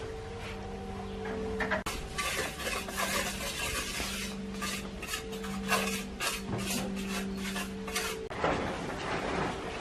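A metal trowel scraping and clinking through wet cement: a quick series of short strokes, then one longer scrape near the end.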